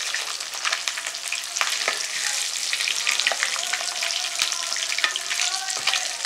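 Hot oil sizzling and crackling in a cooking pot, with a metal spatula stirring in it.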